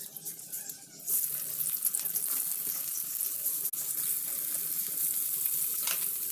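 Sliced onions frying in hot oil in a karahi. The sizzle sets in sharply about a second in as the onions hit the oil, then runs on as a steady hiss with a few crackles.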